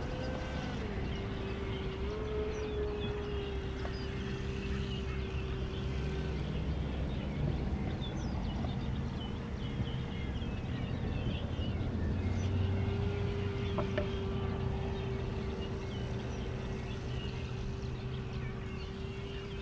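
Radio-controlled model boat's electric motor whining at a steady pitch. It stops about six seconds in and starts again around twelve seconds, with small steps in pitch near the start and near the end. Birds chirp faintly in the background.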